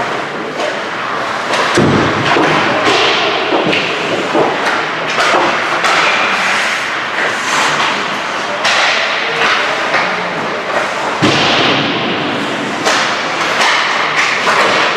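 Ice hockey on-ice play: skate blades scraping and carving the ice, with frequent sharp clacks of sticks and puck. Two heavy thuds stand out, about two seconds in and again about eleven seconds in.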